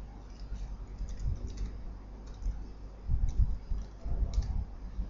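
Typing on a computer keyboard: irregular, scattered keystrokes, with a few soft low thumps about three seconds in.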